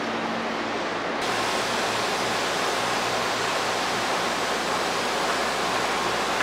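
Steady, even hiss of a Hankyu 1000 series electric train standing at a platform, with a faint steady hum under it. About a second in the sound turns brighter and slightly louder.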